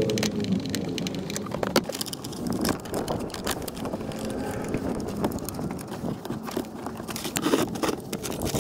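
A screwdriver working small Phillips screws in a van's plastic floor trim, then hands tucking a cable under the trim: a run of irregular clicks, scrapes and rattles.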